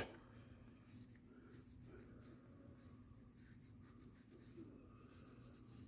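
Near silence: faint, irregular scratchy rubbing over a low steady hum.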